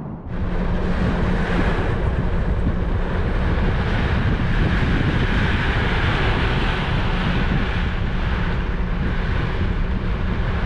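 Heavy rain beating on a car's roof and windscreen, heard from inside the moving car, over a steady low rumble of road and engine noise. It comes in suddenly just after the start and stays loud and even.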